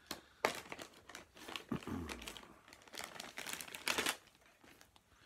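Crinkling and rustling of a resealable bag of loose-leaf chewing tobacco being handled, an irregular run of crackles with sharper ones about half a second in and near four seconds.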